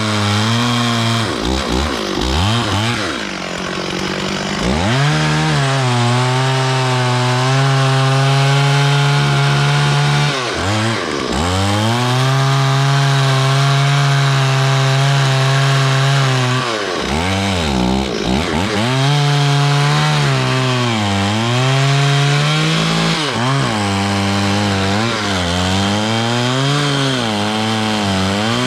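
Stihl 440 two-stroke chainsaw running near full throttle while sawing wood, its pitch sagging and recovering several times as the chain bites and clears.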